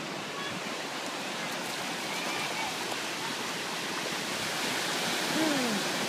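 Ocean surf breaking and washing up the sand, a steady rushing hiss that swells slightly near the end, with a brief faint voice about five seconds in.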